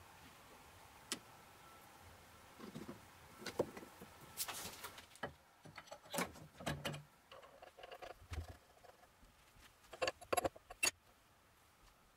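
Irregular light clicks, clinks and knocks of small hard objects being handled, with a quick cluster of them a little before the end.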